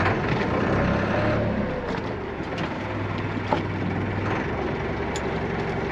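Dive boat's engine running, a steady low hum over a haze of water noise.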